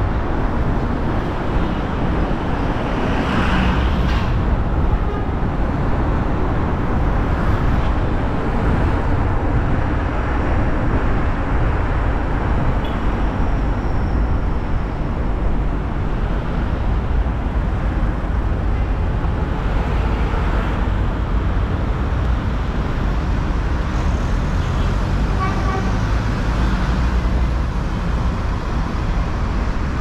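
A car driving through city traffic: steady engine and road noise with passing vehicles, and a short car-horn toot late on.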